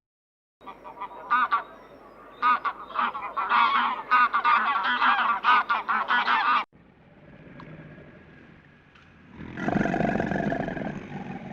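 Geese honking, many overlapping calls from a flock for about six seconds, cutting off abruptly. After a short faint stretch, a different, lower sound begins near the end.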